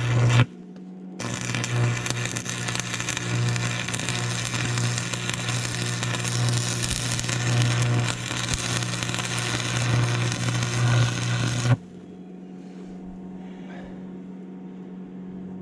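Stick (arc) welding steel onto a crawler loader's track frame at the idler: the arc crackles and sizzles over a steady buzz. It breaks off briefly about half a second in, then runs until it stops abruptly near the end, leaving a low steady hum.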